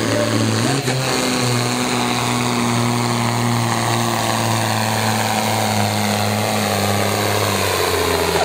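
Turbo diesel engine of a 4500 kg sport-class pulling tractor running flat out under full load as it drags the weight sled, a loud steady drone whose pitch sags slightly near the end.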